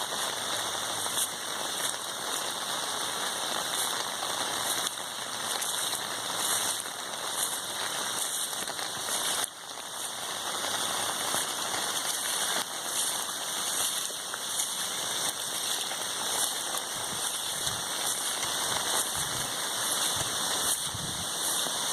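Steady hiss of rainwater, with a brief dip in level about halfway.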